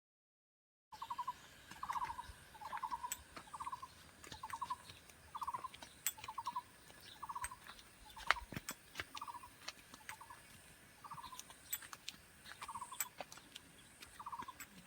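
Taiwan barbet singing: a long run of short, low trilled notes repeated about one to two a second, starting about a second in.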